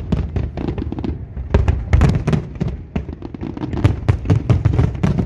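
Fireworks display: a dense run of aerial shell bursts, many bangs in quick, irregular succession over a continuous low rumble.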